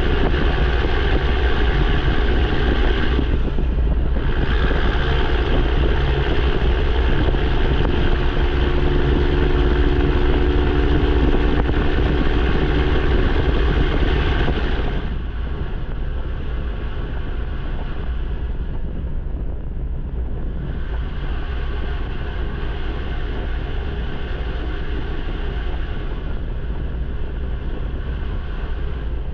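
Semi truck's straight-piped, fully deleted PACCAR MX13 diesel running loud under power, with a brief dip about four seconds in. About halfway it drops off to a quieter, steadier running sound.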